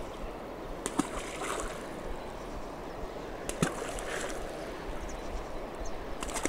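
Balls of fishing groundbait hitting calm river water, three short splashes about a second in, after three and a half seconds and near the end, over a faint steady background hiss.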